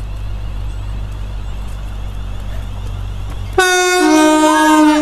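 An approaching electric multiple unit train rumbles low and steady, then about three and a half seconds in sounds its two-tone horn: a high note, with a lower note joining about half a second later, both held loud.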